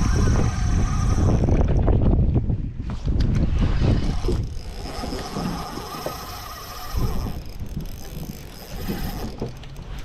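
Wind buffeting the microphone with a heavy, uneven rumble, over a thin, steady mechanical whir that drops out briefly about two seconds in and returns.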